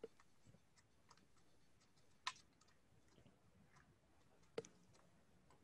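Near silence with three faint, short clicks spaced about two seconds apart.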